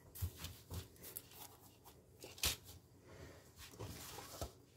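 A metal spoon scraping and clinking in a stainless-steel bowl of samosa filling as the bowl is handled, with a handful of sharp knocks; the loudest comes about two and a half seconds in.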